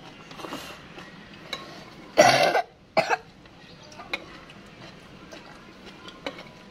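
A woman coughs twice: a longer, loud cough about two seconds in and a short one just after. A few faint clicks of a spoon against a bowl are heard around it.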